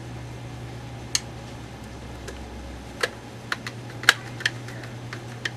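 Irregular sharp clicks and taps of a screwdriver and small screws against the plastic housing of a P90 box magazine, as its cover screws are put back in. The loudest click comes about four seconds in, over a steady low hum.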